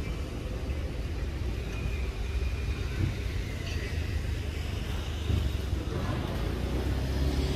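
Outdoor background noise: a steady low rumble with a faint hiss over it.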